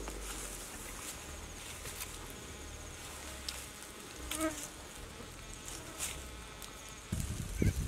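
Insects buzzing steadily, with a few sharp crackles scattered through and a short chirp about halfway. A louder low rumble starts near the end.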